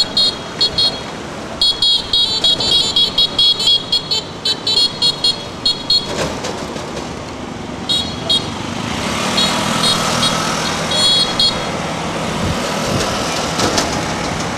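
Many short, high-pitched horn toots in quick bursts, pausing about six seconds in and starting again, over street traffic noise, with a vehicle engine hum growing louder in the second half.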